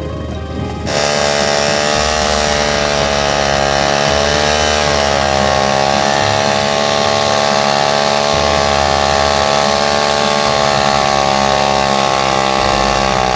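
Old motorcycle engine converted into a log-hauling winch, running steadily at high revs. It comes in loud about a second in.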